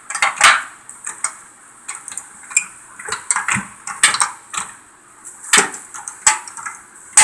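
Irregular metal clicks and clunks, a few a second, as the tractor's homemade stick-shift lever is worked by hand.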